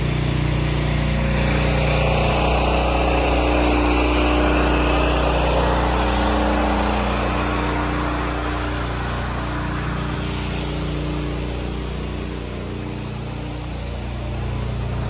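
Pressure washer engine running steadily while the downstream wand sprays a water and sodium hypochlorite mix onto a stucco facade, with a hiss from the spray. The hiss is loudest a few seconds in and eases off somewhat later.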